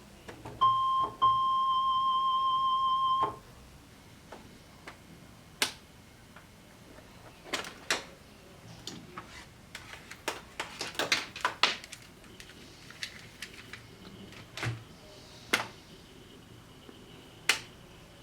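Casio SA-75 electronic keyboard sounding one high, steady note: a short tap, then held about two seconds before cutting off. After that, scattered sharp plastic clicks of keys and buttons being pressed with no note sounding, including a quick flurry of clicks midway.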